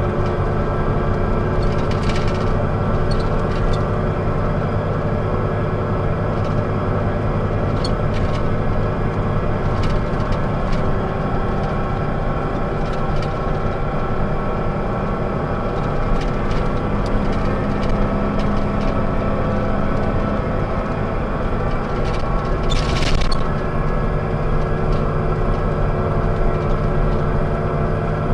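Inside the passenger cabin of a 1998 Scania K124EB coach under way: its rear-mounted turbocharged 12-litre six-cylinder DSC 12 diesel runs steadily, an engine the uploader calls rather bad sounding. Scattered clicks and knocks come from the cabin, the loudest one late on.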